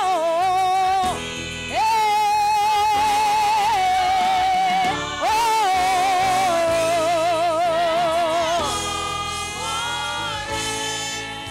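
Gospel singing: a woman lead singer holds long notes with a wide vibrato over instrumental backing, and the choir joins in near the end.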